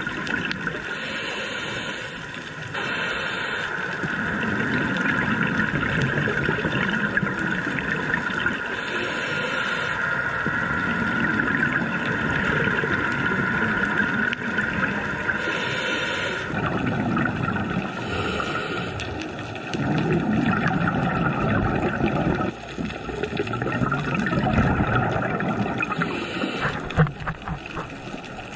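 Muffled underwater sound of a scuba dive: a scuba diver's exhaled regulator bubbles gurgling in irregular bursts over a steady watery hiss and hum. The sound changes abruptly a few times.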